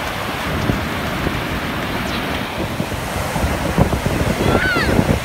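Ocean surf breaking and churning, with wind buffeting the microphone. A brief high, falling cry sounds near the end.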